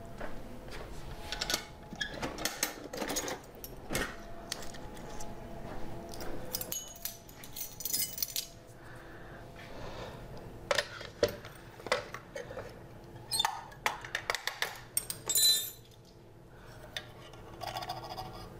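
Small kitchenware clinks and clicks: a ring of metal measuring spoons jangling and tapping against a jar and a bowl as sugar and salt are measured out. There are two brief metallic rings, about eight and fifteen seconds in.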